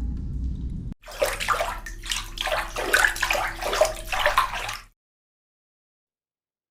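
A low rumble for about a second, then a cut to about four seconds of water splashing and sloshing as a dog is washed in a bath. The sound stops abruptly into silence.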